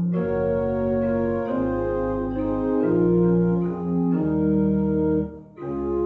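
Organ playing slow, held chords that change every second or so, with a brief break between phrases a little after five seconds in.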